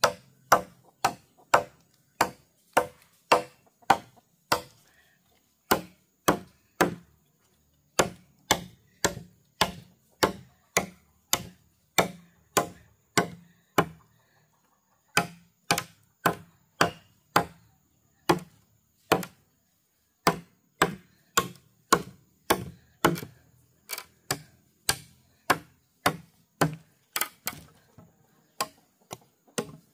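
Steady chopping: sharp blows on wood, about two a second, with a short pause about halfway through.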